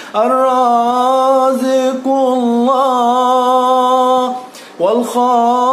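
A man's solo voice singing an Arabic religious hymn (ibtihal) in long, held, ornamented notes, with two short breaks for breath.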